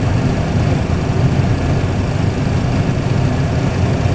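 Boeing 737 Classic flight simulator's engine and runway sound during the takeoff roll at takeoff thrust: a steady deep rumble with an even hiss above it.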